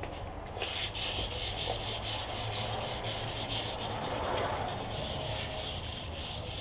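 Hand sanding with 320-grit wet-and-dry sandpaper on a block, rubbed back and forth in quick strokes over the painted roof of a Datsun 1200 wagon. It starts about half a second in. The paint is being flatted back before the top coat.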